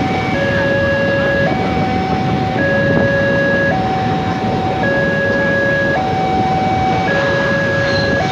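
Railway level-crossing warning alarm sounding an electronic two-tone chime that switches between a lower and a higher note about once a second, over the steady rumble of passenger coaches rolling across the crossing.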